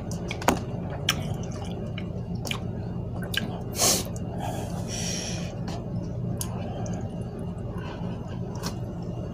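A person chewing and eating instant cup noodles, with small clicks of a plastic fork in the cup, over a steady low hum. A short, loud, sharp breath comes about four seconds in.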